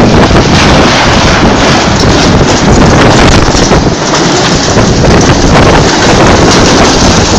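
Strong wind blasting over the microphone: a loud, continuous rushing rumble that swells and dips with the gusts, during what the uploader calls a strong tornado.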